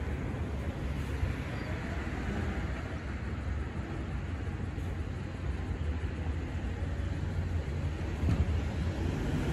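Dennis Eagle Elite 6 garbage truck's diesel engine running with a steady low rumble as it creeps along the street, with a brief thump about eight seconds in.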